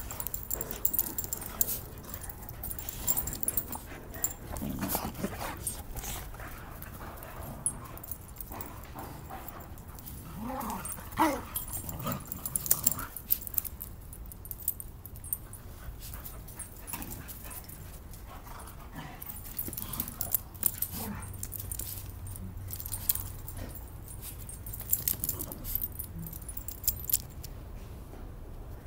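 Dogs playing: scuffling, short clinks and jingles, and one brief wavering whine partway through.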